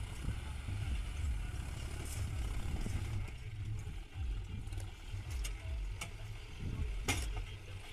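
John Deere 5050D tractor's diesel engine labouring as the tractor climbs a steep dirt mound with its front wheels lifting, heard as an uneven low rumble. A few sharp clicks, the loudest about seven seconds in.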